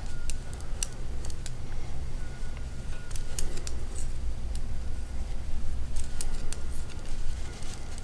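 Knitting needles clicking and tapping against each other at an irregular pace as stitches are worked by hand.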